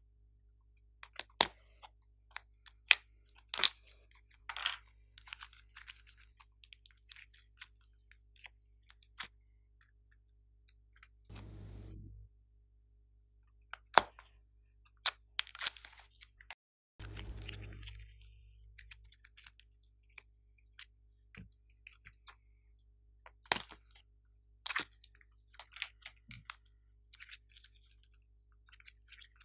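Small plastic clay cases handled and opened by hand: scattered sharp plastic clicks and taps, with two noisy stretches of scraping or peeling about a second long near the middle.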